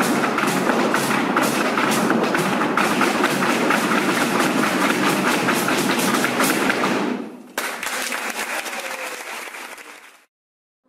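Flamenco music with a fast clatter of dancers' heel stamping on a wooden floor, which stops abruptly about seven seconds in. Applause follows and fades out to silence.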